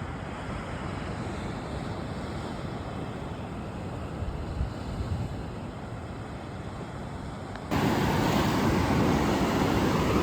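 Pacific Ocean surf washing in, mixed with wind on the microphone. About two-thirds of the way in the sound jumps abruptly louder and brighter.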